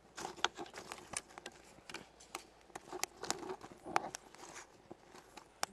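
Twig and wood fire crackling in a small brick rocket stove, with irregular sharp pops and snaps.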